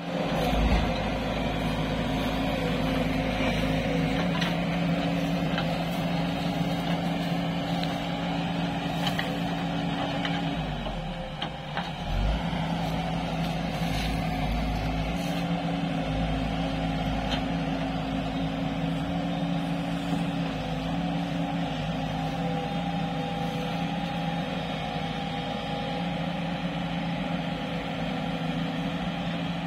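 Diesel engines of a JCB tracked excavator and a JCB 3DX Plus backhoe loader running steadily under working load while digging. The engine note sags and drops in pitch about ten seconds in, then picks back up a second or two later.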